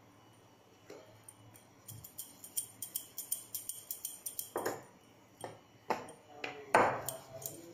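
A metal bangle clinking in quick, light ticks as hands shape and flour paratha dough, with a few louder soft knocks in the second half.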